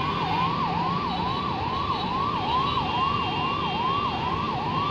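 Ambulance siren sounding a fast yelp, its pitch sweeping up and down about three times a second, over steady traffic noise.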